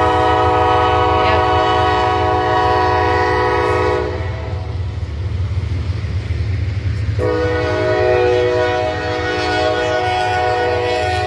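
Freight train horn sounding a long blast that stops about four seconds in, then sounding again about seven seconds in, over the steady low rumble of the passing double-stack container train.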